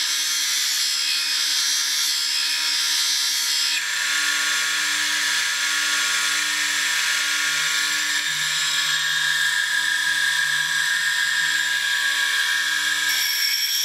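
Small electric tool sharpener with a diamond wheel running while the brazed carbide tip of a lathe parting tool is ground against it: a steady grinding hiss over the motor's hum. The hiss changes character about four seconds in and again near the end as the tool is moved on the wheel.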